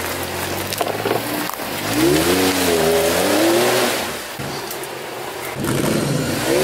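Jeep Wrangler engine under load in deep mud, running low at first, then revving up and back down about two seconds in and rising again near the end.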